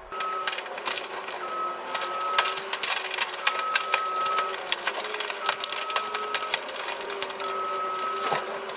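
Back-up alarm on a John Deere forwarder beeping about once every two seconds, each beep about a second long, over the machine's steady engine hum. Frequent sharp clicks and crunches run through it.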